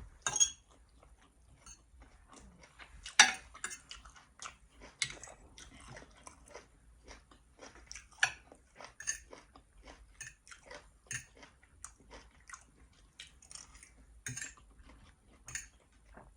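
Close-miked chewing and wet mouth sounds of someone eating, a steady run of small clicks and smacks with a few sharper ones, the loudest about three seconds in.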